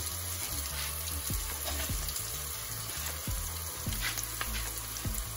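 Panko-breaded pork steak frying in hot cooking oil in a pot: a steady sizzle with a few small crackles.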